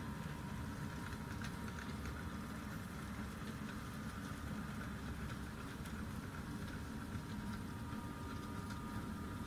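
Model railway goods train of flat wagons and a brake van running along the track: a steady rattling rumble of small wheels on rail, with light scattered clicks and a faint steady high whine.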